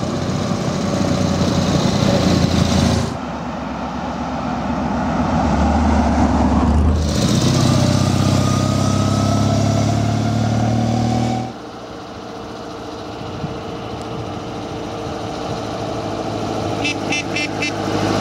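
Old motorcycle engines passing close by, followed by another engine whose note rises steadily as it speeds up and then falls back to a lower hum. The sound changes abruptly about three, seven and eleven and a half seconds in.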